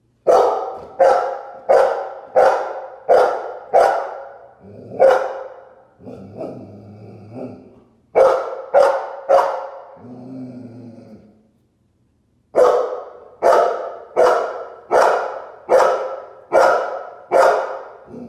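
Golden Retriever barking at its own reflection in a glass door: three runs of loud, sharp barks about two thirds of a second apart, with lower growling in the pauses between runs.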